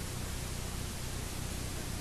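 Steady hiss with a low hum underneath, the noise of an old tape recording, and no other sound.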